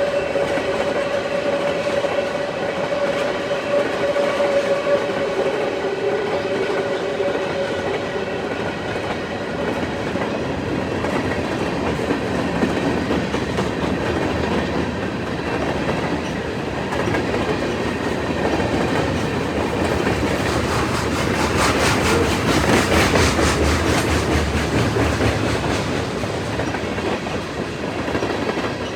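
CN freight train cars rolling past, their wheels clattering over the rail joints. A steady two-note tone sounds at first and stops about eight seconds in. The clatter grows louder and denser about three quarters of the way through.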